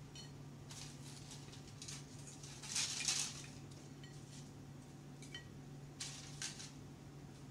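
Steak fries being set by hand onto ceramic dinner plates: scattered light taps and clinks on the plates, loudest about three seconds in, over a steady low hum.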